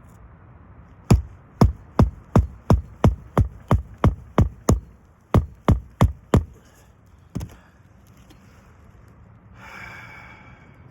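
Hand hammer driving new roofing nails into a replacement roof shingle: about eleven quick strikes at roughly three a second, a short pause, four more, then one last blow. A brief rustle follows near the end.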